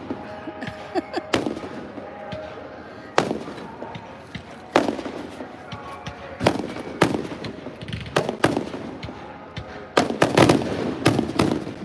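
Aerial fireworks shells bursting overhead: single sharp bangs every second or two, then a quick run of loud bursts near the end.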